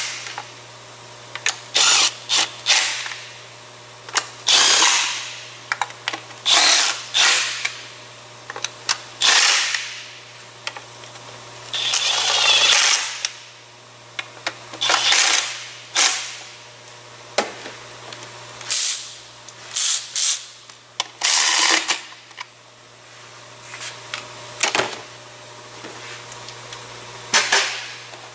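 A handheld power tool on a long extension running in the intake-manifold bolts in short bursts, about fifteen times, with small clicks between the runs.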